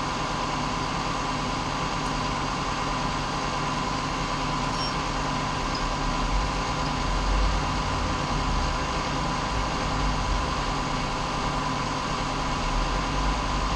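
A steady, machine-like hum and hiss, with low rumbles swelling in and out from about halfway through.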